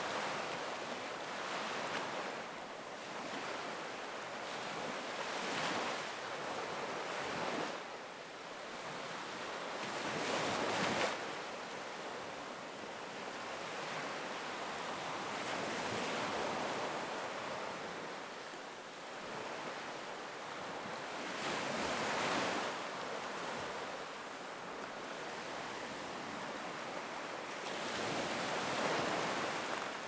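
Black Sea surf breaking on the beach: a steady rush of water that swells every several seconds as each wave comes in, loudest about a third of the way in and again near the end.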